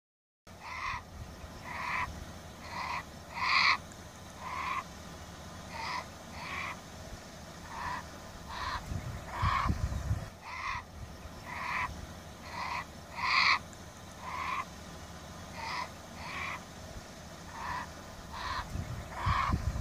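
Grizzly bear cub squalling over and over in short, high cries about once a second: distress calls to its mother while it is stuck on the other side of a sheep fence. A low rumble swells twice, once midway and once near the end.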